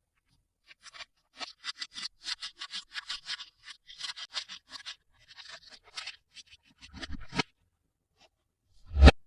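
Toy packaging being opened and handled: a run of quick scratchy scrapes and crinkles, about three or four a second, then a couple of thuds, the loudest just before the end.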